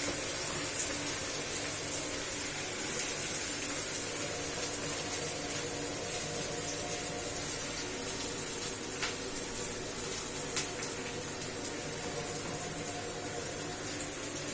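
Food frying in oil in a pan: a steady sizzling hiss with small crackles, over a faint steady hum.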